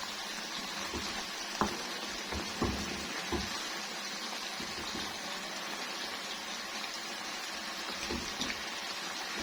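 Chicken and yogurt masala sizzling in a pot as it is fried down, a steady hiss, with a few knocks of a stirring spoon against the pot, the sharpest about one and a half seconds in.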